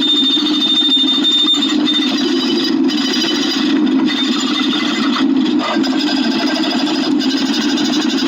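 Rapid, continuous clicking, dense and fast with no clear pauses.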